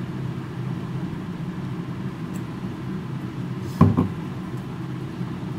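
A steady low background hum, with one sharp knock a little under four seconds in as a perfume bottle is set down on the desk.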